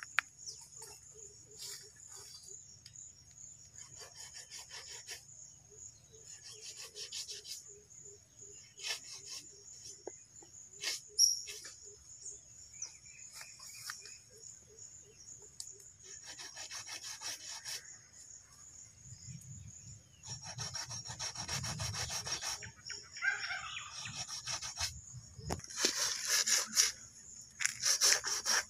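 A large chopping knife scraping and cutting hide and meat from a cow's head, in bursts of quick rasping strokes that get louder and busier in the last third, with one sharp knock about eleven seconds in. Insects trill steadily underneath.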